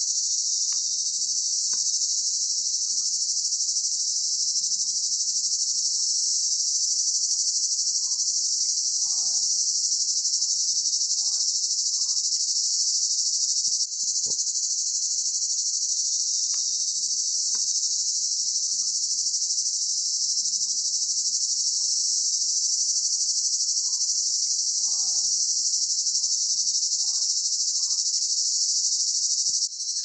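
A dense chorus of insects shrilling steadily, an unbroken high-pitched buzz with no pulses or pauses.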